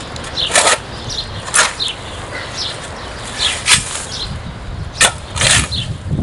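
A shovel chopping into dry, hard ground, about five sharp strikes spaced irregularly a second or so apart, with scraping of earth and dry grass between them.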